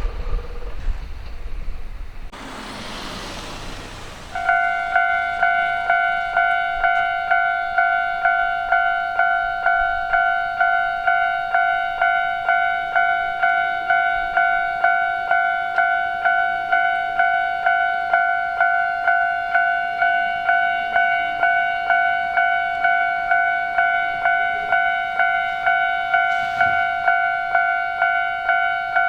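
Japanese railway level crossing warning bell starts up about four seconds in and rings the steady 'kan-kan' alarm, about two strokes a second, signalling an approaching train. Before it, a brief rush of noise.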